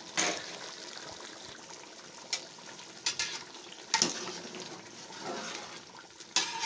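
Vegetable stew bubbling in a metal pot, with a spatula stirring and knocking sharply against the pot about five times.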